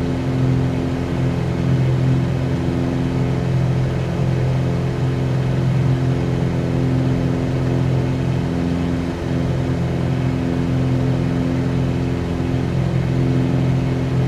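Steady drone of a Cessna 182Q's six-cylinder Continental engine and propeller in flight, heard from inside the cabin, holding one even pitch throughout.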